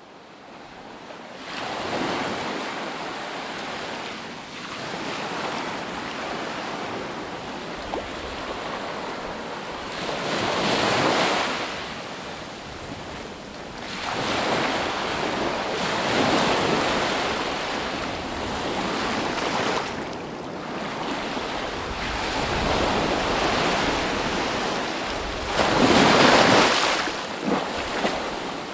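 Ocean surf: waves breaking and washing on the shore, swelling and ebbing every few seconds, fading in at the start, with the biggest surge near the end.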